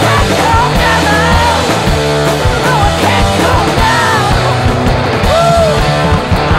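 Heavy 1970s-style soul-rock band recording: drums, bass and electric guitars playing together at a steady beat, with a lead melody that bends up and down in pitch.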